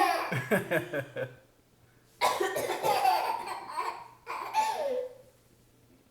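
A woman coughing and a baby laughing hard in response, in two bouts with a short pause between them.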